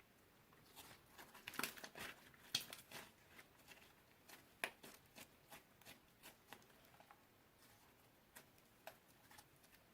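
Slime being squeezed and kneaded by hand, giving quiet sticky clicks and small pops. They come thickest about one and a half to three seconds in, then thin out to scattered single clicks.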